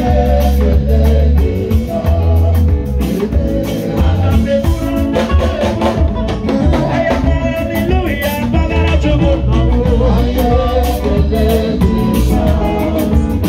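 Live band music: drum kit, electric and bass guitars and keyboard playing together with a steady beat and a strong bass line, with singing over it.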